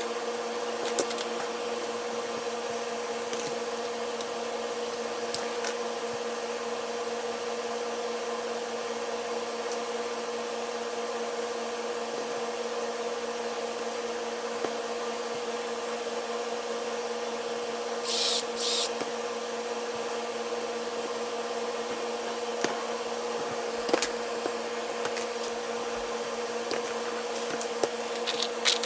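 Small DC motor running steadily through its gears, a constant even whine with no change in speed. About eighteen seconds in there are two short, louder noisy bursts.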